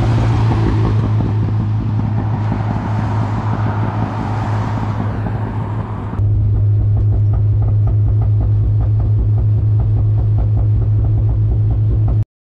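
Mazda B2200 mini truck's four-cylinder engine and tyres as it drives past on the road, the noise swelling and fading. After an abrupt cut about six seconds in, the engine is a steady drone heard from inside the cab.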